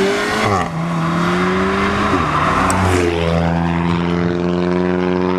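Audi hatchback's engine accelerating hard up through the gears, revs climbing and dropping sharply at two upshifts about half a second and two seconds in, then holding a steady note as the car drives off.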